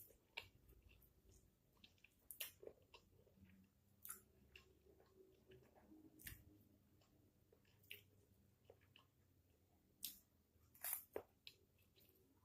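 Faint mouth sounds of someone chewing fried instant noodles: scattered soft smacks and sharp little clicks, about a dozen spread through the stretch, a small cluster near the end.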